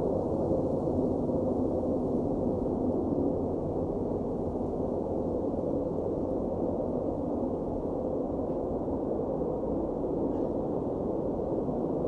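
A steady, muffled low drone with no distinct events, all of it in the low and middle range with nothing high above it.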